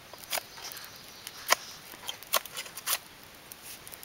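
Bark being scraped and peeled off a freshly cut green stick: about four short, sharp scrapes, the loudest about a second and a half in.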